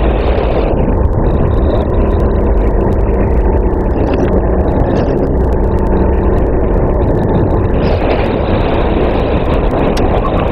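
Racing kart engine running flat out, heard from on board the kart. Its note drops about a second in, as if lifting off for a corner, and picks up again near the end under acceleration.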